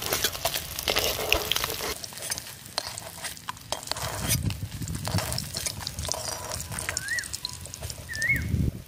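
Pieces of fried pangas fish lifted out of hot mustard oil in a metal kadai: the oil sizzles while a metal spatula scrapes and clicks against the pan.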